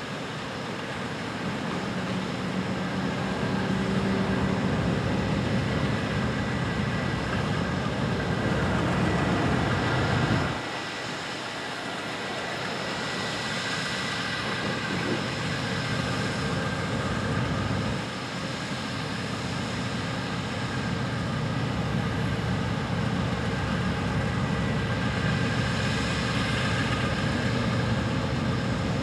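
Steady hum and hiss of the Amtrak Silver Meteor passenger train standing at the platform, its equipment running while it waits, with the noise dropping a little about ten seconds in.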